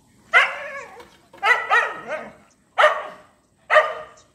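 Small dog barking, about five sharp barks in uneven bursts, two of them in a quick pair.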